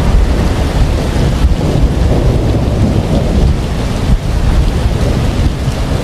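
Thunderstorm: rain falling with a low, continuous rumble of thunder, loud and steady.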